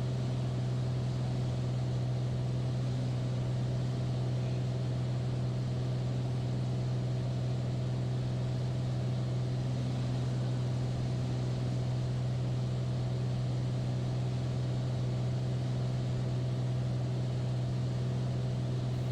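Beechcraft Bonanza A36's piston engine and propeller droning steadily in level cruise, heard from inside the cockpit.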